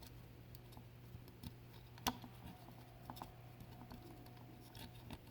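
Faint, scattered light clicks and taps of small objects being handled, the sharpest about two seconds in, over a steady low hum.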